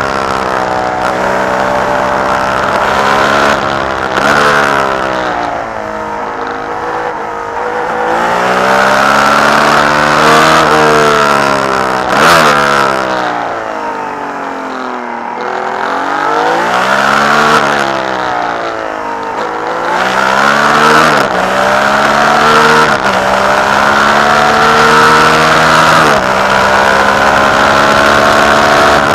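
Ferrari 312B's three-litre flat-12 racing engine heard on board, revving up through the gears and falling back on the overrun and under braking. The engine note drops lowest about halfway through, then climbs again in steps as it pulls through the upshifts.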